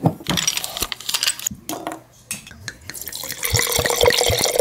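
A lever corkscrew draws the cork from a wine bottle with clicks and scrapes. Then red wine is poured from the bottle into a glass, glugging, and the pour grows louder toward the end.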